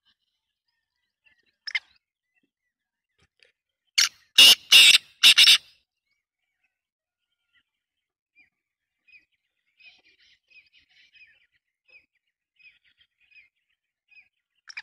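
Caged black francolin (kala teetar) calling: a short note near two seconds in, then its loud harsh call of four notes about four seconds in. Faint soft chirps follow through the second half.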